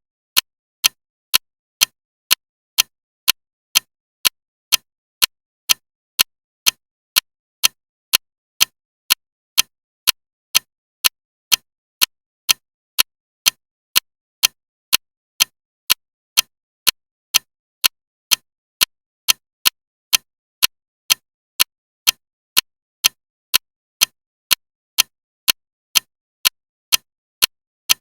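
Clock ticking loudly and steadily: sharp, evenly spaced ticks, about two a second, with silence between them.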